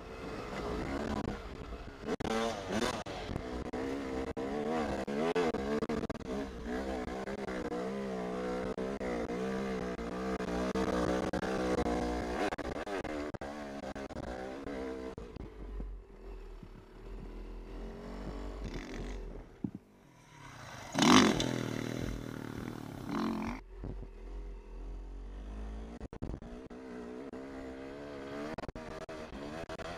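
Yamaha YZ250 two-stroke single-cylinder dirt bike engine running under way, its pitch rising and falling as the throttle is worked, then easing off for a few seconds past the midpoint. About two-thirds of the way through, a loud rush of noise lasting a couple of seconds stands out above the engine.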